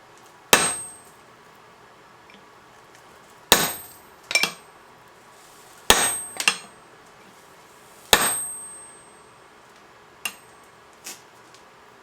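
Hand hammer striking a pointed hot punch on the anvil to punch holes through the boss of a blacksmith-made pair of tongs. There are about six hard, ringing metal-on-metal blows a second or more apart, some followed quickly by a lighter second hit, then two light taps near the end.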